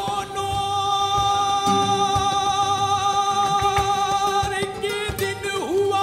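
Live fusion of flamenco and Rajasthani folk music. A single long note with a slight waver is held for about four seconds, then dips near the end, over sharp percussion clicks.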